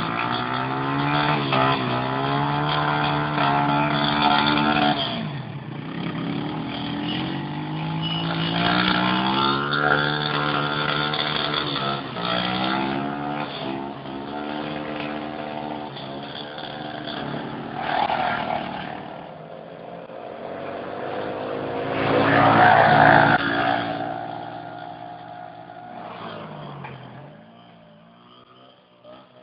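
Small ATV engines revving up and down as the quads ride along a dirt trail. The engine sound swells loudest about two-thirds of the way through, then fades away near the end.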